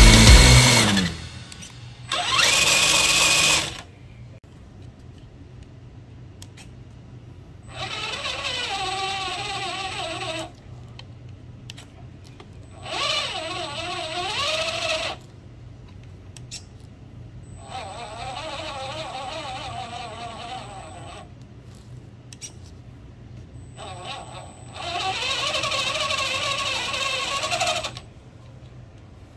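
RC crawler's electric drive motor and gearbox running in four bursts of a few seconds each, the pitch wavering as the throttle is varied, with a steady high whine from the speed controller under each burst. Music fades out at the start, and a short loud burst comes about two seconds in.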